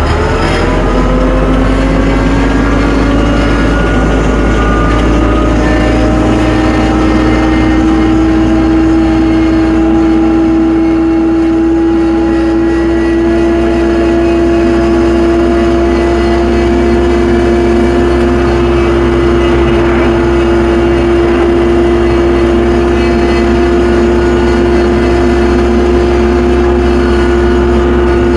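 Tractor engine revving up over the first few seconds, then running steadily at high revs.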